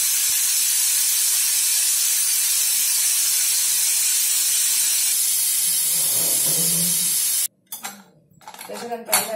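Pressure cooker venting steam through its lifted whistle weight, a loud, steady hiss: the remaining pressure being released by hand after the dal has cooked through its whistles, before the lid is opened. The hiss cuts off suddenly about seven and a half seconds in, followed by a few short knocks.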